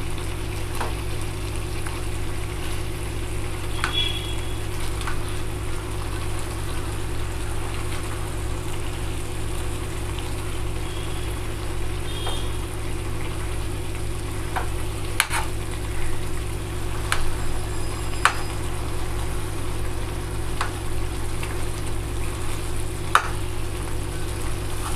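Thick cauliflower-and-pea kurma gravy simmering and sizzling in a pan over a steady low hum, with scattered sharp clicks of a steel knife against the pan as the cauliflower florets are cut in the gravy.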